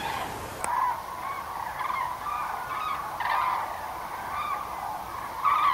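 A flock of common cranes calling, many birds at once: overlapping, continuous calls that are loudest just before the end.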